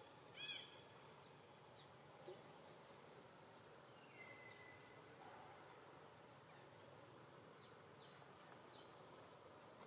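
Near silence: faint outdoor ambience with a short high chirp about half a second in, a faint whistle-like call around the middle and a few faint high buzzes.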